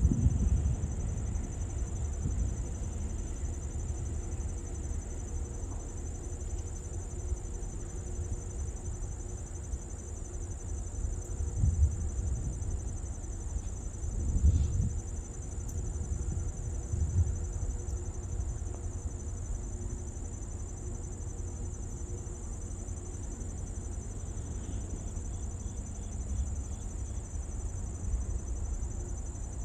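Insects trilling in a steady, high, unbroken drone over a low rumble that swells a few times around the middle.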